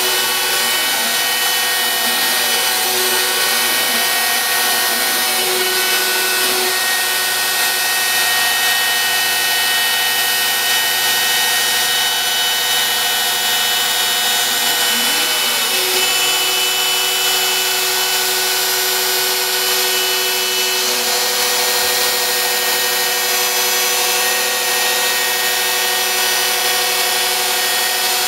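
Home-built CNC router cutting MDF: the router spindle runs steadily under load while the gantry's stepper motors whine. The stepper pitch sweeps up and down in arcs several times during the first quarter and again about halfway, as the axes trace curves.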